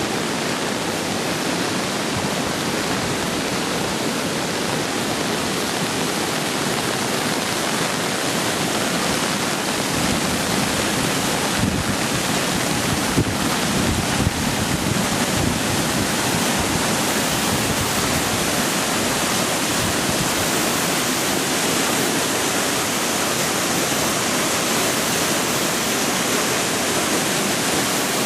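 Storm floodwater rushing, a steady, even rush of water. A few faint knocks sound around the middle.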